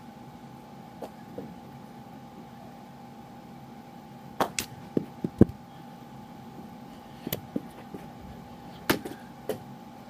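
Irregular sharp knocks and clacks of a mini hockey stick and ball during indoor knee hockey play. Two light taps come about a second in, then clusters of louder knocks come near the middle, at about seven seconds and near the end, over a steady faint hum.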